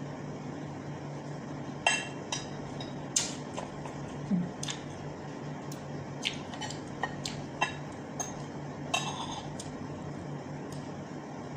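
Metal fork and spoon clinking and scraping against a pan and plates while eating, a dozen or so sharp separate clinks, over a steady low hum.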